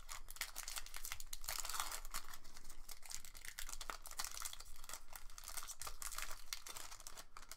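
Foil wrapper of a Pokémon trading card booster pack crinkling and tearing as it is pulled open by hand, a dense crackle of many small crinkles.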